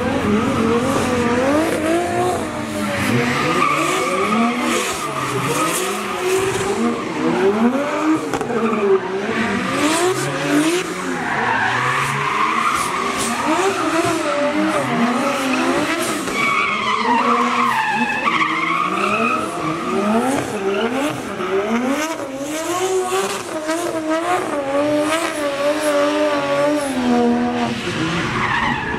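Drift car engine revving hard, its pitch rising and falling again and again as the driver works the throttle through a slide, over the hiss and squeal of spinning tyres.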